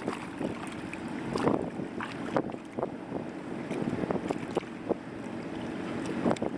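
Wind buffeting the microphone over a steady low hum, with irregular small splashes and squelches from hands and feet working in shallow water and soft mud.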